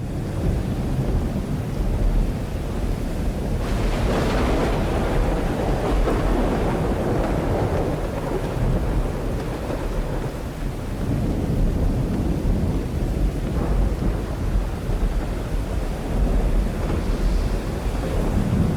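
Steady storm noise of wind and rain during a tornado, with a louder gust about four seconds in.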